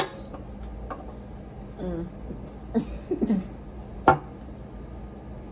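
An empty aluminium soda can set down on a hard tabletop with a sharp clack, followed by short vocal noises and another sharp knock about four seconds in.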